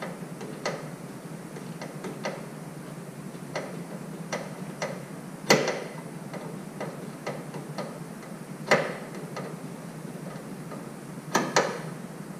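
Hand screwdriver backing a Phillips screw out of a Toyota Tacoma's grille: irregular light clicks and ticks, with three louder sharp clicks spaced a few seconds apart.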